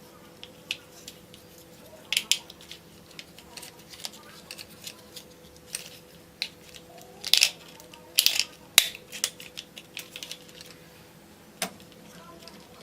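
Hard plastic toys being handled and set down, with scattered clicks and clatters and a few short, louder rustling bursts.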